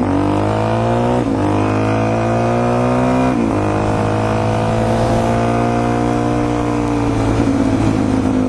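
Suzuki DR-Z400E dirt bike's single-cylinder four-stroke engine accelerating on the road, its note climbing with a brief break at each of two gear changes, about a second and three and a half seconds in. It then settles into a steady cruise.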